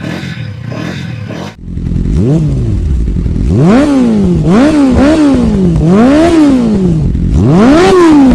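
Motorcycle engine revved hard about six times, each rev a quick rise and fall in pitch, starting suddenly about a second and a half in; the last rev is the loudest.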